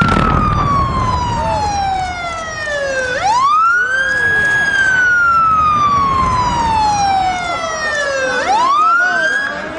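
Warning siren wailing ahead of a demolition blast: each cycle climbs quickly, holds briefly, then falls slowly over about four seconds before climbing again. One slow fall ends and a new climb starts about three seconds in, and another about eight and a half seconds in.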